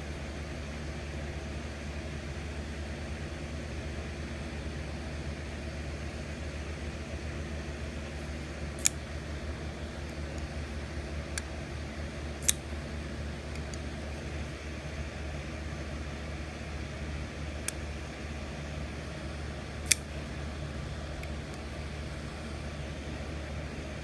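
Ray Laconico Jasmine folding knife being handled and worked open and shut, giving a few sharp, separate clicks over a steady low machine hum.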